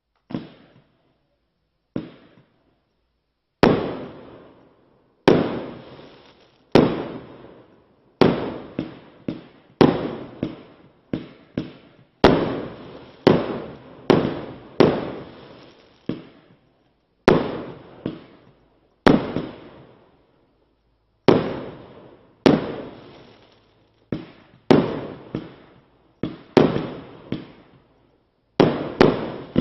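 A 25-shot, 1.25-inch consumer fireworks cake ("Lion King") firing its shots one after another. Each shot is a sharp bang that trails off, about one every second and a half, with quick runs of smaller pops in between at times.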